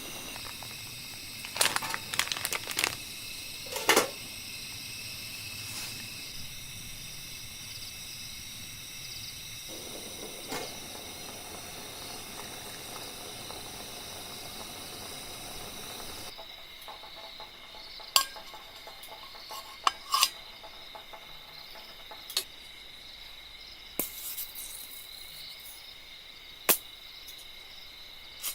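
Steady high-pitched chirring of insects, with sharp clinks and knocks: a cluster of them a couple of seconds in, then single ones every few seconds.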